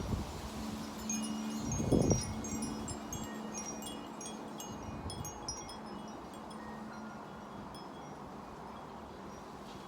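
Wind chimes ringing irregularly in gusty wind, with a deeper tone held through the first half. There are gusts buffeting the microphone right at the start and about two seconds in.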